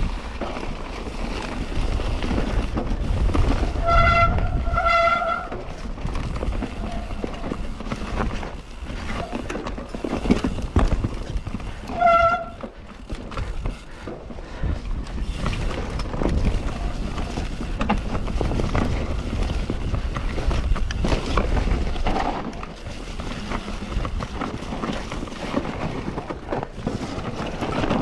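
Mountain bike riding on dirt and gravel tracks: tyres rolling over the ground, the bike rattling over bumps, and wind rumbling on the body-mounted microphone. Short squeals from the disc brakes come twice around four to five seconds in and once about twelve seconds in.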